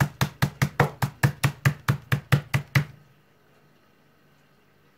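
Meat mallet pounding chicken breast fillets through a plastic bag on a plastic cutting board: rapid, even strikes, about five a second, that stop abruptly about three seconds in.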